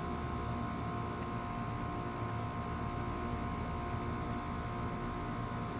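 A steady mechanical hum with a few constant pitched tones, unchanging in level throughout.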